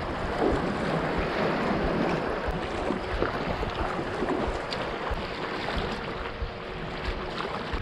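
Sea water splashing and lapping around a sea kayak as it is paddled, with waves washing nearby and wind rumbling on the microphone.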